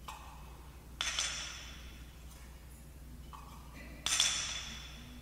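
Altar bells rung twice, about a second in and again about four seconds in, each a bright ring that fades over about a second: the bells rung at the elevation of the consecrated host.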